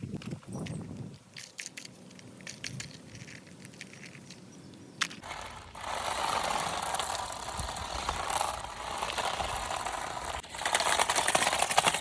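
Light clicks and rustling of handling. About five seconds in there is a sharp click, and a toy car's small electric motor starts running with a fast buzzing rattle, louder for the last second or so.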